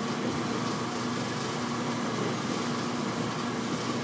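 1952 American Kitchens dishwasher running its wash, its impeller throwing water hard enough to turn the Roto-Rack: a steady motor hum under continuous splashing spray.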